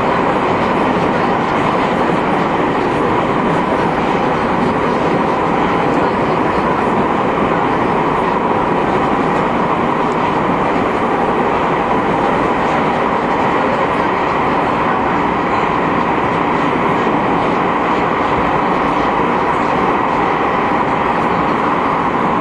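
Running noise of a JR 221 series electric multiple unit, heard inside the motor car KuMoHa 221-70. It is a steady, even rumble and hiss of wheels on rail and the car underway, with no change in level.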